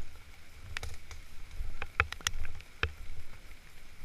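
Low rumble on the microphone with a few sharp clicks and knocks, bunched about halfway through.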